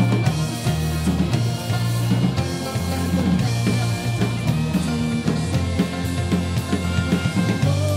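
Celtic punk band playing live: drum kit and bass driving a steady beat under acoustic guitar and highland bagpipes.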